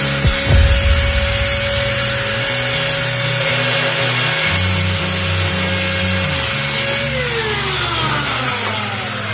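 Electric jigsaw cutting through a small block of wood: a loud, steady motor whine over the rasp of the reciprocating blade. About seven seconds in it is switched off, and the motor's pitch falls as it winds down.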